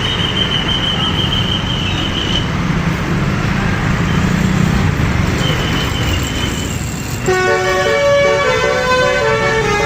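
Bus engine rumbling with a thin, steady high tone over it. About seven seconds in, a telolet horn starts: a set of musical horns playing a quick tune of changing notes.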